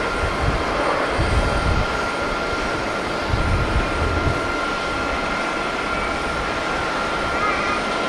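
Jet engines of a Boeing 787 at take-off thrust, a steady roar as the airliner lifts off and climbs away. Strong wind buffets the microphone in low gusts, about a second in and again about three seconds in.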